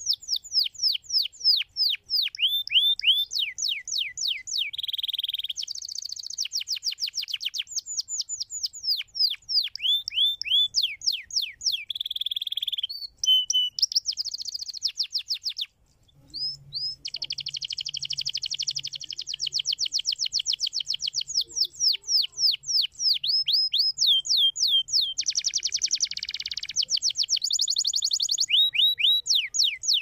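Domestic canary singing a long, fast song. It is made of rapid rolls of repeated downward-sliding notes, switching between these and short buzzy phrases, with a brief break about halfway through.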